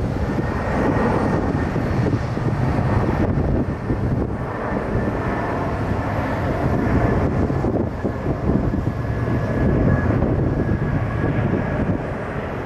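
Jet airliner engines running close by, a loud steady rush with a faint high whine held through it.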